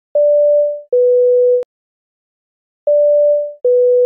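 Electronic two-note beep, a higher pure tone stepping down to a lower one, sounded twice about two and a half seconds apart. The first pair ends in a click.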